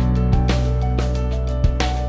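Background music with a steady beat, a sustained bass and a plucked melody.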